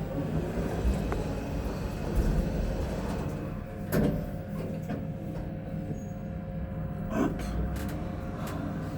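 Elevator car travelling: a steady low hum with a faint steady tone, and a few knocks and clunks from the car, the loudest about four seconds in.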